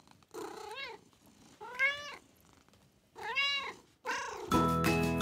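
A domestic cat meowing four times, each meow rising and then falling in pitch, the last one fainter. Music starts near the end.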